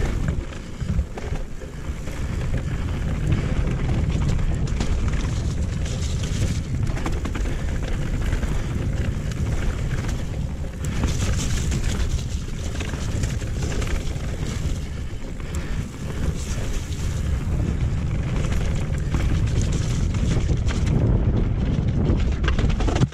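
Mountain bike (a Haibike Nduro 8) descending a rough, wet dirt trail at speed: tyres running over dirt and stones, with frequent knocks and rattles from the bike over bumps, under steady wind buffeting the camera's microphone.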